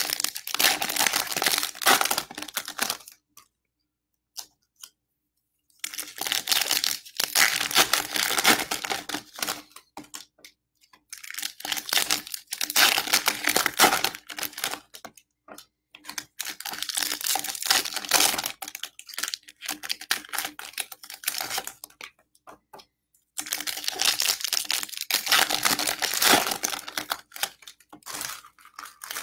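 Baseball card pack wrappers being torn open and crinkled, in several bouts of a few seconds each with short quiet pauses between.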